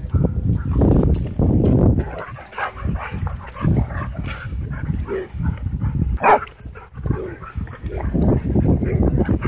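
Dogs vocalizing during rough play-fighting, with repeated rough growls and grunts and one short high-pitched cry about six seconds in.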